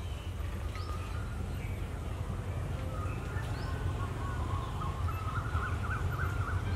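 Birds chirping in short upward-sweeping notes, with a warbling trill in the last couple of seconds, over the steady low rumble of a slowly approaching diesel locomotive that grows slightly louder toward the end.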